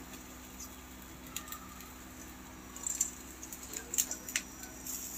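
Metal barbecue tongs clicking against a charcoal grill's grate and the meat as it is turned, a few light clicks in the second half over a low steady hum.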